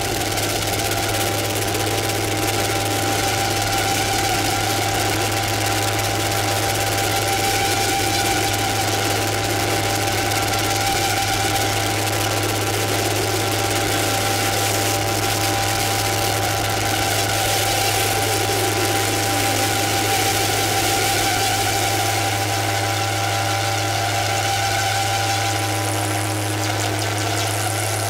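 Electronic noise performance: a steady low drone under several held feedback tones and a wash of hiss, with a slow falling tone just past the middle.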